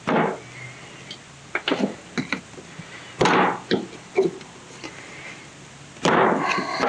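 Tools and small metal carburetor parts clicking and knocking during bench disassembly of a small-engine carburetor: a string of separate taps, with a longer rattle about three seconds in and another near the end.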